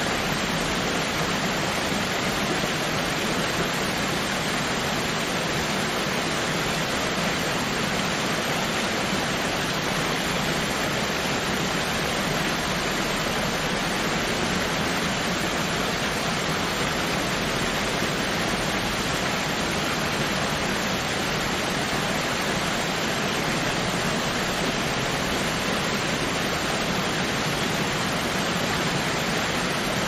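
Waterfall: a steady, even rush of falling water with no distinct splashes or breaks.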